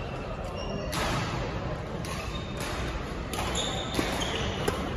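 Badminton rally: a few sharp racket strikes on the shuttlecock in the second half, and sneakers squeaking briefly on the wooden court floor, over the echoing background noise of a large sports hall.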